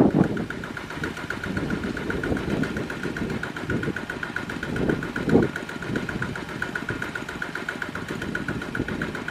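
Single-cylinder diesel engine of a two-wheel walking tractor running with a fast, even knocking beat, the loaded tractor bogged down in deep mud.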